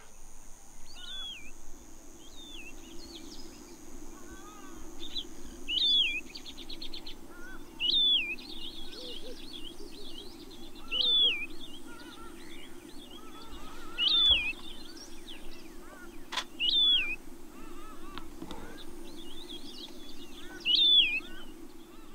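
A bird repeating one short whistled call, dipping and rising in pitch, about every two to three seconds, over a steady low hum. There is a single sharp click past the middle.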